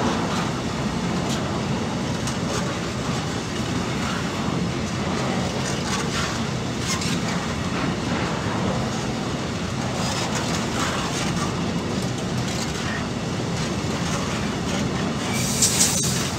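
Sggrss container wagons of a freight train rolling past: a steady rumble of wheels on rail with irregular clacks over the rail joints. A brief loud hiss comes just before the end.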